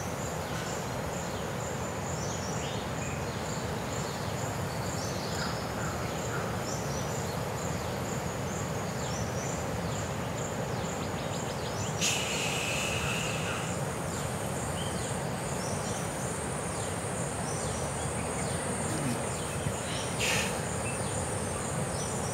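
Insects chirping in a steady, regularly pulsing high note over a constant background hiss of outdoor ambience. A brief louder rush of hiss comes about twelve seconds in, and a short one near the end.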